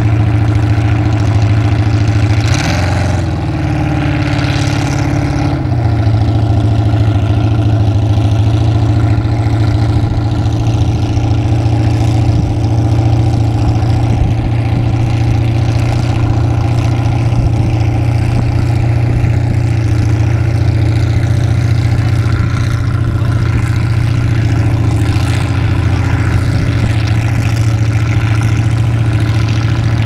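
Lifted Chevy mud truck's engine running steadily at low revs as it crawls through muddy water. It revs up about two and a half seconds in, holds there for a few seconds, then drops back to a steady low run.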